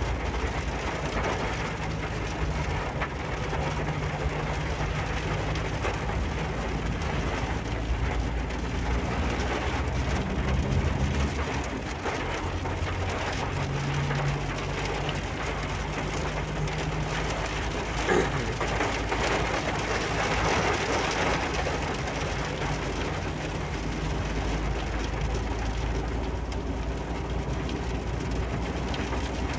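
Rain pelting the roof and windscreen of a Ford Ranger pickup, heard from inside the cab while it drives, over the low hum of the engine and road.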